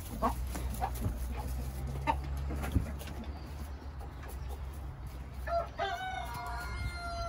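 Chickens clucking now and then, and then a rooster crowing once near the end, one long call of about two seconds.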